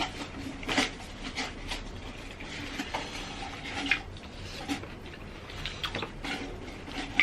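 Eating at a table: scattered clinks and clicks of cutlery on plates and bowls, with chewing.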